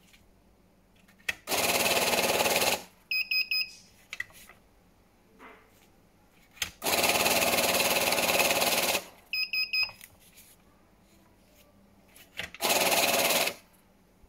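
CashTek ST-8192T banknote counting machine whirring as it riffles a stack of paper notes through at speed, in three runs of one to two seconds each. Each run ends with a quick series of short high beeps.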